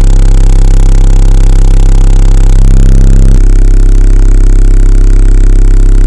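A 33 Hz test tone played very loud through two Sony Xplod 12-inch subwoofers in a sixth-order bandpass enclosure, heard inside the car for an SPL test. It is a steady deep drone, so loud that the recording is overloaded and full of distortion, and its tone shifts slightly about three seconds in.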